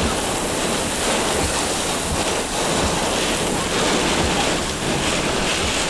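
Heavy rain and gusty wind of a severe thunderstorm: a steady hiss of downpour, with wind buffeting the microphone now and then.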